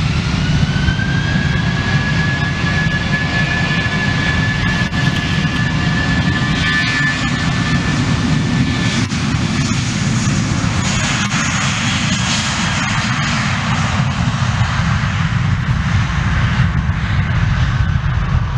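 Jet airliner's engines at high power as it speeds along the runway: a loud steady rumble under a high whine that rises slightly at first. About ten seconds in, the whine gives way to a rushing roar as the aircraft passes.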